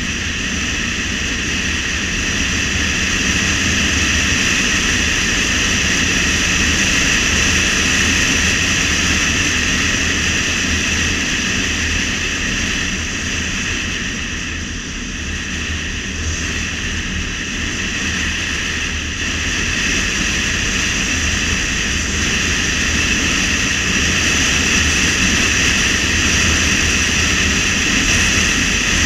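Car driving at speed on a winding road: steady road, tyre and wind noise with engine rumble underneath, dipping slightly about halfway through.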